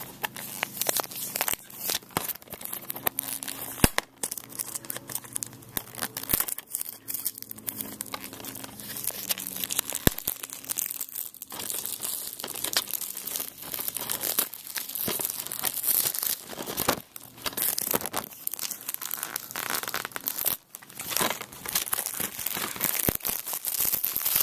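Plastic shrink wrap being torn and peeled off a DVD case: continuous crinkling with frequent sharp rips and clicks.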